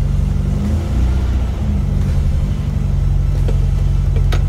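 Tuned 2007 cc air-cooled VW Beetle flat-four with twin Weber 48 IDA carburettors idling steadily just after a cold start, with no throttle, at about 800 rpm. A few sharp clicks near the end.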